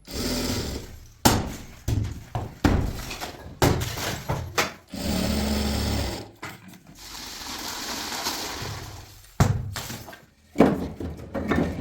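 Building renovation work: a run of knocks, thuds and crashes of material being broken, with a steadier machine-like stretch about halfway through.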